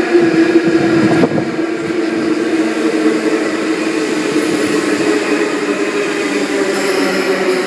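Sydney Trains S set double-deck electric train running into the platform: a steady hum with a strong drone over rolling noise, a little louder in the first second or so.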